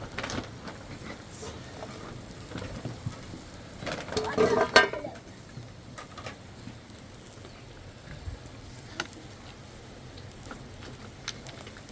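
Food frying in a pan, a steady low sizzle, with stirring and a few sharp utensil clicks near the end.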